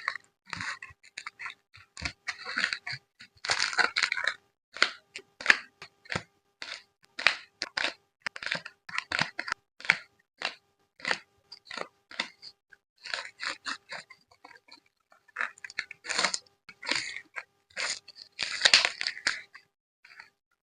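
Photo cards and their plastic and paper packing being handled: a close, irregular run of crinkles, rustles and light taps, busiest about four seconds in and near the end. A faint steady hum lies underneath.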